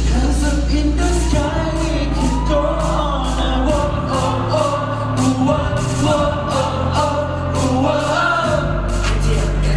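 Pop song with several voices singing over a heavy, sustained bass line and a steady drum beat.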